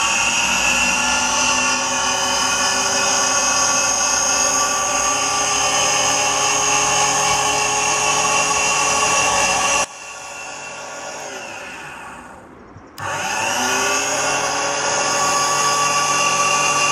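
Unimat SL lathe/mill's 95-watt electric motor and belt drive running at speed with a steady multi-tone whine. About ten seconds in it is switched off and the pitch falls as it winds down over about three seconds. It is then switched back on and whines up to speed again.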